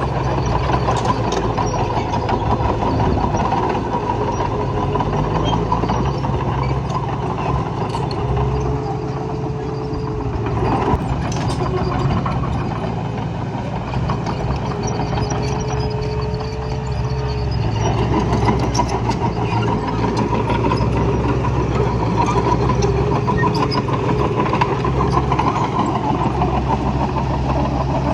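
Heavy earthmoving engine running steadily at a working idle, with a faint higher whine coming in twice near the middle.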